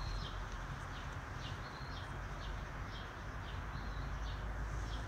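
Small birds chirping: a continuing run of short, high chirps, about two or three a second, over a steady background hiss.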